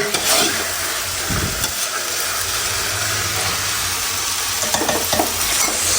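Meat frying in a pan, a steady sizzle, with a few light knocks near the end.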